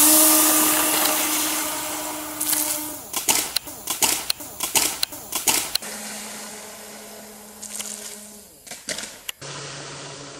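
Electric motors and propellers of a foam RC Dornier 228 model on its take-off run, a steady whine with a hiss of prop wash, fading as the plane pulls away. About three seconds in comes a run of sharp clicks and knocks, and later the whine returns fainter and lower in pitch.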